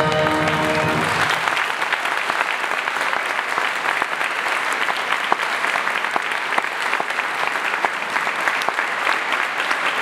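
A choir's final held chord dies away about a second in, and audience applause takes over and carries on steadily.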